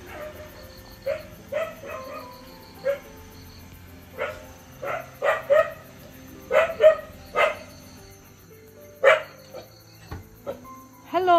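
A dog barking repeatedly: about a dozen short, sharp barks at irregular intervals, some in quick pairs, over soft background music.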